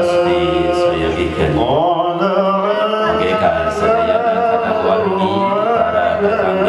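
Music: a voice singing a slow, ornamented melody, with long held notes that bend in pitch.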